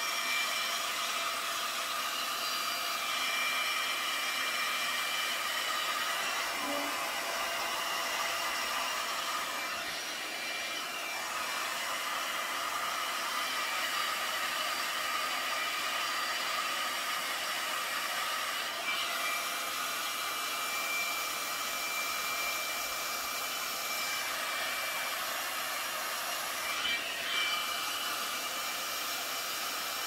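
Conair Infinite Spin hot-air spinning brush running on high: a steady rush of blown air with a thin high whine from the motor. The whine breaks briefly a few times.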